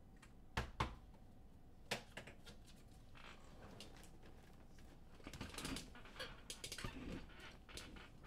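Trading cards and their packaging being handled on a table: a few sharp clicks and taps in the first two seconds, then crinkling and rustling with small ticks.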